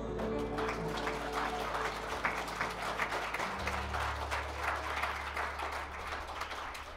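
Applause of rapid hand claps at the end of a song, over held low electric bass notes that shift pitch once about halfway through.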